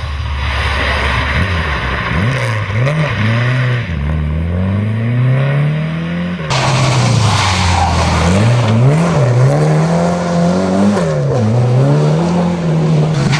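Historic rally car engines at full throttle, the revs climbing and dropping with each gear change and lift off the throttle, over a haze of tyre and road noise. About halfway through the sound switches abruptly to a second car doing the same.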